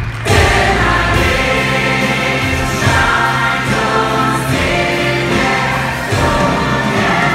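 Stage-musical finale: the full cast singing together in chorus over a loud band backing. The music comes in loud just after the start.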